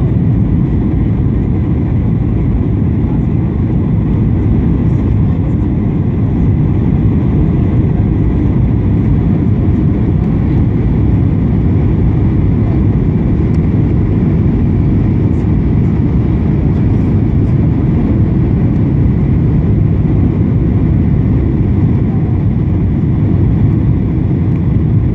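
Steady, loud, low cabin rumble of a Boeing 737's engines and airflow, heard inside the cabin on approach with the flaps extended.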